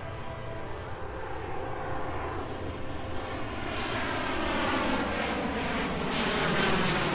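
An airplane passing overhead, a steady engine rumble with slowly sweeping tone that grows louder over the last few seconds.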